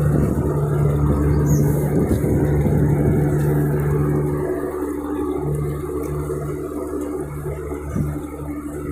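Steady low drone of a boat engine running, with a hum that eases off a little about halfway through.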